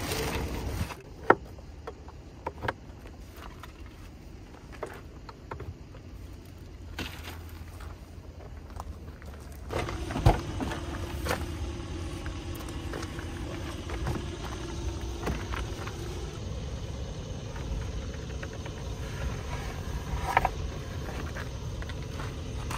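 Steady low rumble of vehicles idling, with scattered sharp knocks and clicks from things being handled in a car while a small wooden table is set up. The loudest knock comes about a second in, and a steady hum joins the rumble for several seconds around the middle.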